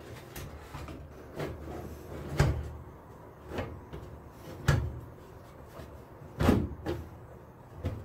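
A 380 W computer power supply knocking and scraping against the sheet-metal PC case as it is pushed and seated into its mounting bay: a series of separate hollow clunks, the loudest about two and a half, four and a half and six and a half seconds in.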